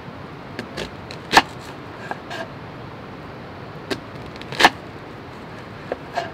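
A series of short, sharp knocks and clinks at uneven intervals, two of them much louder, about a second and a half in and just past the middle, over a steady background hiss.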